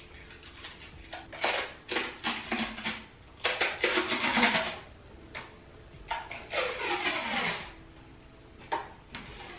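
Clear adhesive film bandage being peeled off skin in several uneven pulls, crackling and ripping as the adhesive lets go. The longest and loudest pull comes about four seconds in, and another follows near the three-quarter mark with a falling squeal.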